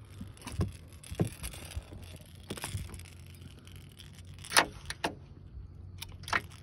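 Scattered knocks and slaps on a boat deck from a just-landed channel catfish flopping about, the sharpest one about four and a half seconds in, over a low steady hum.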